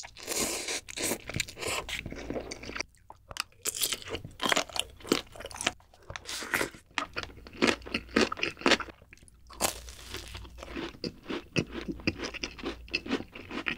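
A person eating close to the microphone: slurping instant noodles, then biting into a gimbap roll and chewing, with many crisp crunches and wet mouth sounds coming in quick irregular runs with short pauses between them.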